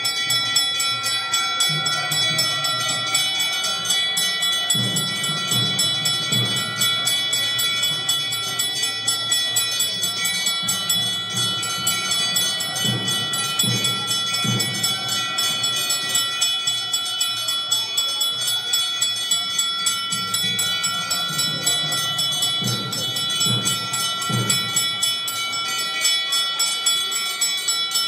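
A puja hand bell rung rapidly and without pause during arati, giving a steady high ringing. Deep thumps come in a few short clusters beneath it.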